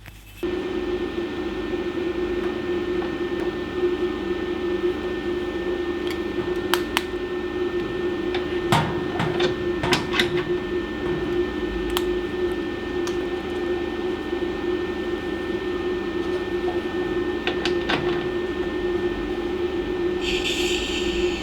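DC lift-TIG welding arc from an Ecoarc 160 inverter welder. It strikes abruptly just under half a second in and then burns with a steady buzzing hum, with occasional small crackles and a brief brighter hiss near the end.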